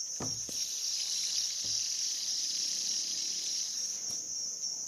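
Steady high-pitched chirring in the background, with a couple of soft knocks about a quarter second and just under two seconds in.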